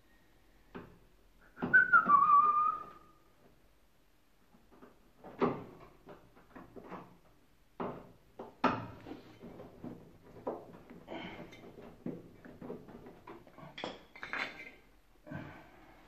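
Screwdriver and screws clicking, tapping and scraping against the metal front panel of an Indesit washing machine as screws are fitted, in an irregular string of small clicks and knocks. About two seconds in, a short falling whistle, the loudest sound.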